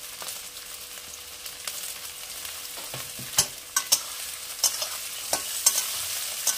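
Cauliflower, carrot and French beans sizzling in hot oil in an aluminium kadai, while a metal spatula stirs them, scraping and knocking against the pan several times from about three seconds in.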